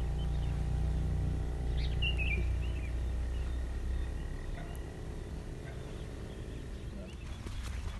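A low steady engine hum that fades away about halfway through, with a single short bird chirp about two seconds in.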